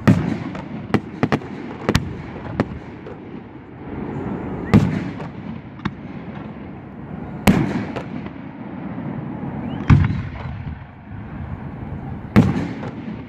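Fireworks display: aerial shells bursting in a string of sharp bangs, the five loudest a few seconds apart, each followed by a low rumbling tail, with smaller pops in between.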